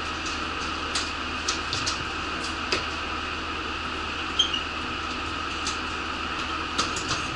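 Steady hum inside a stationary bus, its engine idling and ventilation running, with scattered short clicks and knocks from passengers boarding.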